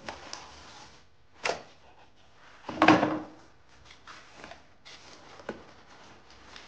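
Cardboard shipping box and its packing being handled as items are lifted out: a few scrapes and knocks, the loudest about three seconds in, then small clicks.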